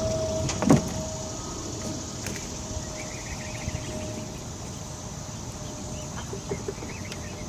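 A bird's warbling trill about three seconds in, over steady outdoor background hiss, with a single thump about 0.7 s in.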